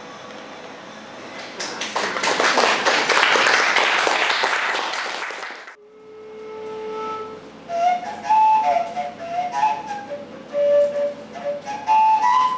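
Audience applauding for about four seconds, then stopping sharply. A flute then comes in with a long held note, followed by a slow melody of short phrases.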